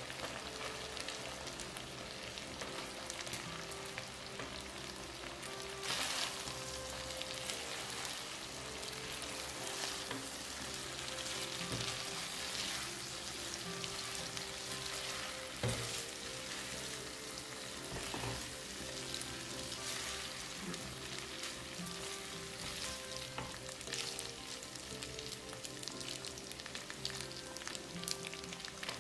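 Butter-garlic shrimp sauce sizzling in a non-stick pan as cooked spaghetti is tossed through it with tongs. Now and then the tongs click against the pan.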